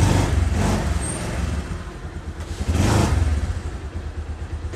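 Bajaj Pulsar 150's single-cylinder engine running on the stand, revved by two throttle blips, one at the start and a second about three seconds in, to show its pickup after a clutch cable adjustment.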